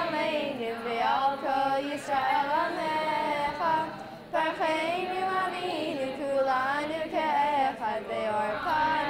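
Two girls' voices chanting a Hebrew prayer together to a sung melody with held, wavering notes, with a short breath-pause about four seconds in.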